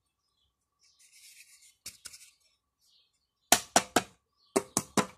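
Sharp metallic clicks in two quick runs of about four each, one past the middle and one near the end, after a faint scrape and a couple of lighter clicks: metal parts of an opened Pedrollo jet pump being handled and knocked together.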